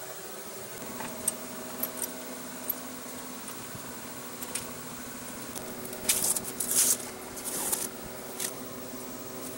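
Blue painter's tape being peeled off a horizontal milling machine's column in several short pulls, loudest between about six and eight seconds in. A few light clicks come in the first three seconds, over a steady low hum.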